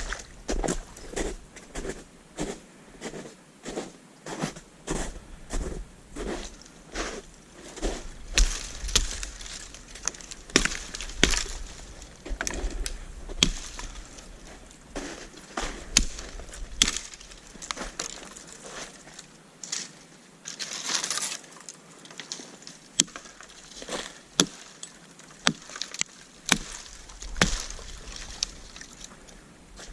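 Twigs being snapped by hand: a long run of sharp cracks and snaps at irregular intervals.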